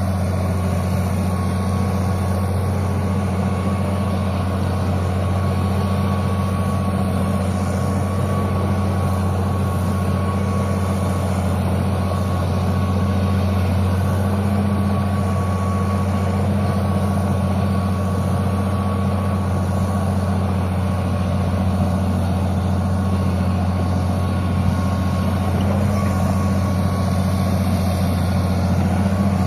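Old Caterpillar D6 crawler tractor's diesel engine running steadily at a constant speed with a deep, even note. A thin steady whine sits above it.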